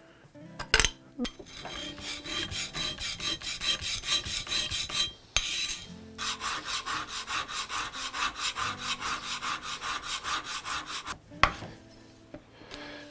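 A small steel hand-plane part being rubbed back and forth on a flat metal sharpening plate: a gritty, scraping rasp at about four strokes a second. It comes in two long runs with a short pause between, and a knock from a tool being set down near the start and near the end.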